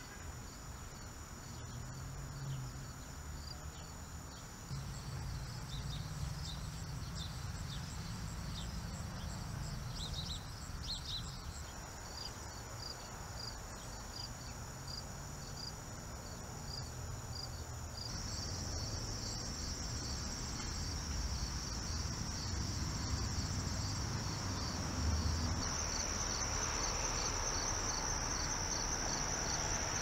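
Evening chorus of crickets and other insects trilling steadily, with a regular chirp about twice a second beneath it and a low rumble underneath. The chorus shifts abruptly a few times and is loudest near the end.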